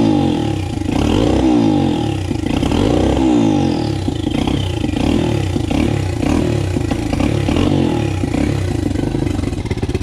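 Turbocharged Loncin single-cylinder pit bike engine revved in place: several rising throttle blips in the first few seconds, then running with lighter blips. It stumbles rather than revving out cleanly on sudden throttle, which the owner blames on a carburettor too big for it, a VM26.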